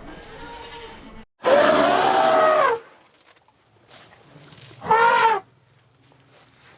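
Cattle mooing: one long call starting about a second and a half in, then a shorter call that rises in pitch a little past the middle.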